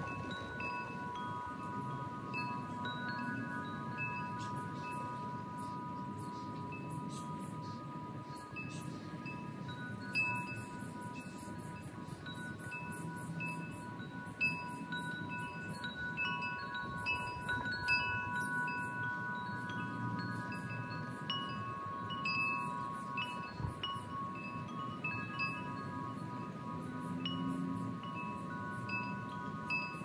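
Metal wind chimes ringing steadily, several notes overlapping and fading in and out as the wind moves them. Short high chirps from birds repeat over them.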